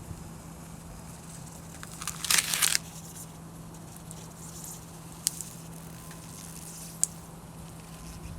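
Pre-mask transfer tape being peeled off a vinyl window decal: a short crackling tear about two seconds in, then a couple of faint ticks, over a steady low hum.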